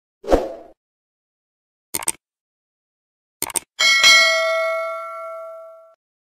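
Subscribe-button animation sound effects: a short whoosh, a mouse click about two seconds in, a quick double click a second and a half later, then a notification bell ding that rings out and fades over about two seconds.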